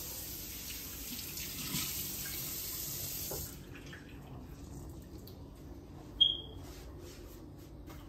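Kitchen tap running into a sink, shut off abruptly about three and a half seconds in. A short high-pitched beep sounds a few seconds later.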